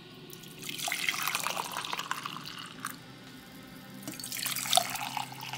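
Coffee poured from a glass carafe into a ceramic mug, then into a second mug: two stretches of a splashing liquid stream with a short pause between them.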